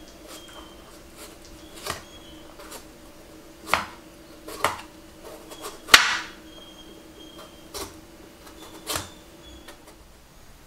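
A kitchen knife slicing thick peel off a citron, the blade knocking on a wooden cutting board in about six separate, irregular strokes, the loudest about six seconds in.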